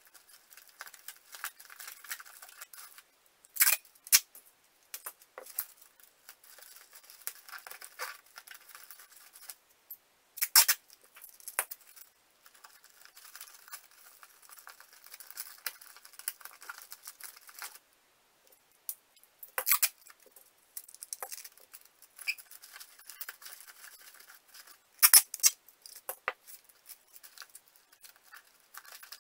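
Cardboard being handled and brown packing tape being pulled and torn off the roll, with four short, sharp rasps of tape about 4, 10, 20 and 25 seconds in, between quieter rustling and scraping of cardboard.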